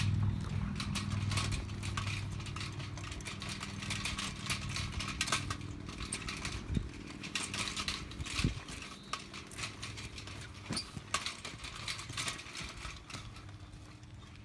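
Low engine hum, loudest at the start, under many irregular sharp clicks and rattles.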